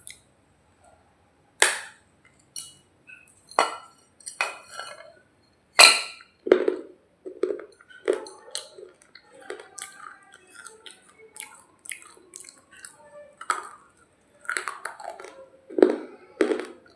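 Close-miked biting and chewing of a hard baked-clay 'roti': a few sharp cracks as pieces snap off, then steady crunching as it is chewed.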